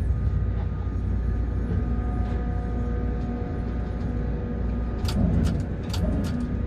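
Strong wind rumbling against a tower crane cab, with a steady machine hum. A few sharp clicks come near the end.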